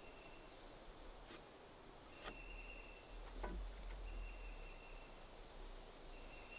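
Faint outdoor ambience: a high, steady call repeats about four times, with two sharp clicks in the first half and a low rumble underneath.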